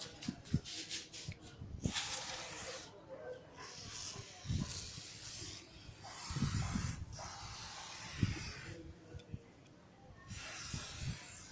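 Aerosol brake cleaner spraying in several separate hissing bursts of one to three seconds each, with short pauses between them.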